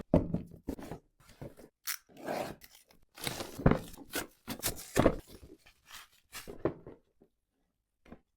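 Product packaging being handled and opened by hand: irregular rustling, crinkling and tearing with sharp clicks and taps, stopping about a second before the end.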